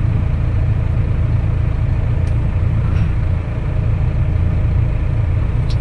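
Tractor engine running at a steady low rumble.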